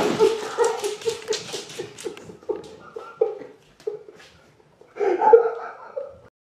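A man laughing in short, quick bursts that fade away, then breaking into a louder laugh about five seconds in.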